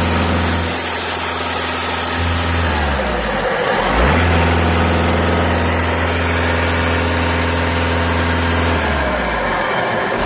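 VW Golf 6 2.0 TDI diesel engine revved up and held twice, dropping back briefly between, with a faint high whistle that rises as it revs. The owner describes the noise on throttle as something between grinding and whistling; the dealer guesses a failing dual-mass flywheel.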